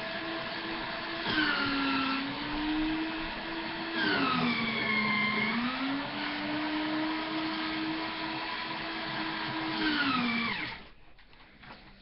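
A small electric motor whirring steadily with a droning tone that dips in pitch three times, then cuts off suddenly near the end.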